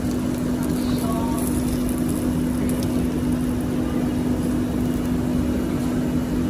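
Steady machine hum at one constant low pitch over an even rumble, like a ventilation fan or motor running.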